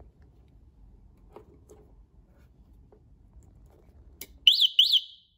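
Scooter alarm unit giving two quick sweeping electronic chirps near the end, just after its multi-pin connector is plugged into the scooter's wiring harness. Before that, faint clicks of the plastic connector being handled.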